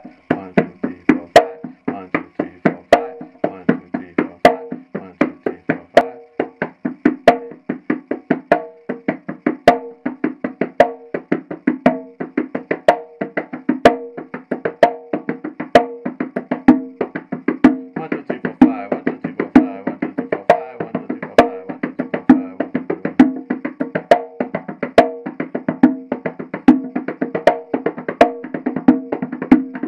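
A single conga drum played by gloved hands in a fast, unbroken repeating rhythm of sharp hand strokes with ringing tones among them. The pattern can be counted in fives or as two groups of three.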